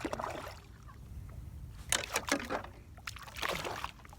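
Hooked speckled trout splashing beside a kayak as it is brought in, a few irregular splashes and knocks, the busiest stretch about two seconds in and again near the end.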